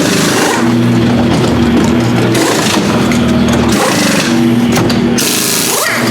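Race car engines passing at speed, their steady notes breaking off and picking up again a few times, with a hiss of tyres and spray on the wet track near the end.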